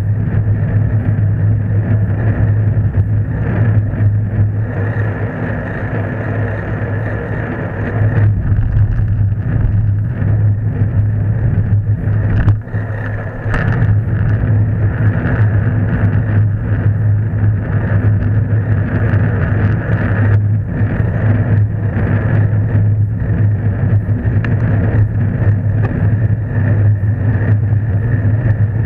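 Steady low rumble of wind and road vibration picked up by a camera mounted on a bicycle being ridden along a road.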